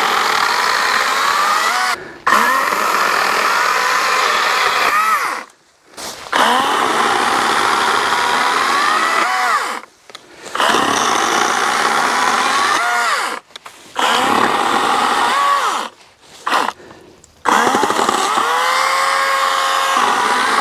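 Wild Badger Power 40-volt cordless electric chainsaw cutting brush and small stems in a series of trigger pulls. About six times, the motor and chain whine for a few seconds, the pitch dipping and recovering as the chain bites into the wood, then the saw stops dead, with no idle between cuts.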